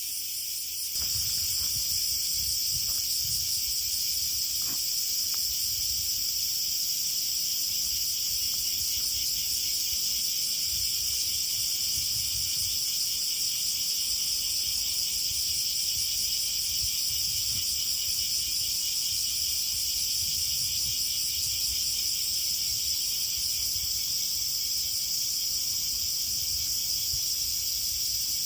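Dense, steady chorus of crickets and other insects chirring, stepping up in level about a second in, with a faint low rumble underneath.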